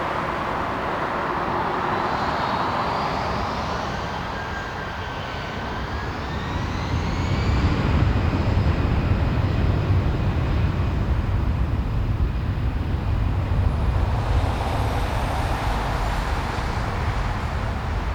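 Jet airliner taking off: a loud engine rush with whining tones sliding in pitch, then a deep rumble that swells about seven seconds in and holds.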